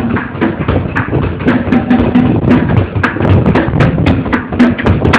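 Escalator running, its steps and machinery clattering with rapid, irregular knocks and clicks over a steady rumble. A low hum comes and goes.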